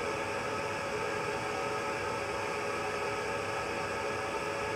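Steady whir of a convection oven's fan running: an even rushing noise with a faint steady hum under it.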